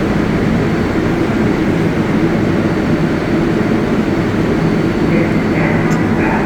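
Subway train in an underground station, giving a loud, steady low rumble with a held hum.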